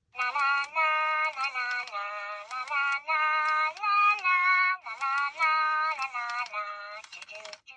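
Hasbro Furby Boom toy singing a short tune in its high, electronic voice: a string of held notes stepping up and down, starting suddenly and tailing off near the end.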